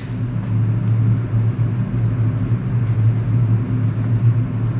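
Steady, loud low droning hum, like a motor or fan running, with no gunshots.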